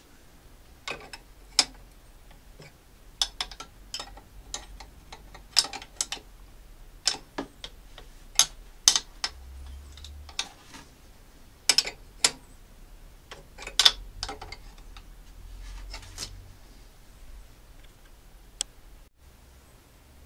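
Sharp metallic clicks of a hand spanner or ratchet tightening nuts, coming singly or in quick pairs at irregular intervals of up to two seconds. The nuts are being turned half a turn at a time to pull a motorcycle camshaft support casting evenly down onto the cylinder head.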